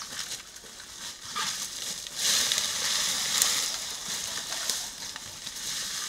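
A rake scraping and dragging through dry leaf litter and twigs, with crackling and crunching, louder from about two seconds in.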